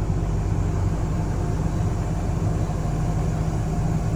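Large engine idling steadily with a low, even hum.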